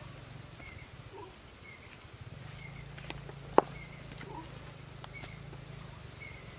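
Embers of a cooking fire crackling, with scattered ticks and one sharp pop about halfway through. Underneath are a steady low hum and a short high chirp repeating about twice a second.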